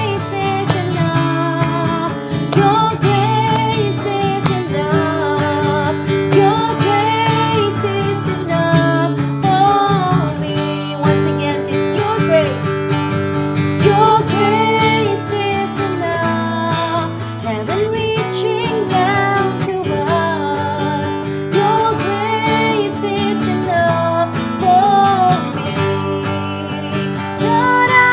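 Two women singing a worship chorus over a strummed acoustic guitar.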